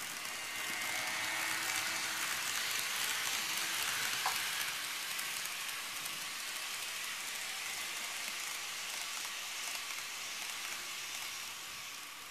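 TOMIX E259 Narita Express N-gauge model train running on sectional track laid on a wooden floor: a steady rolling hiss and whir of wheels and motor. It grows louder over the first few seconds, then fades gradually, with a single click about four seconds in.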